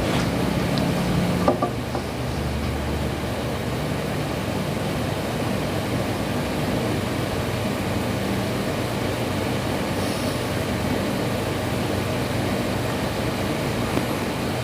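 Steady low rumbling noise like a running vehicle, with a short click about a second and a half in.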